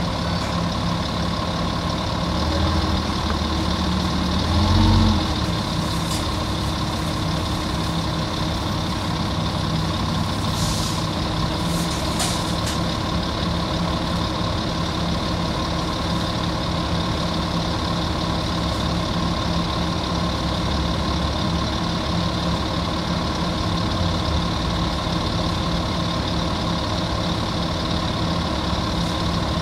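Volvo D10A-245 diesel engine of a Volvo Olympian double-decker bus idling steadily. The engine note briefly rises and falls about four to five seconds in, and a few short hisses come around ten to twelve seconds in.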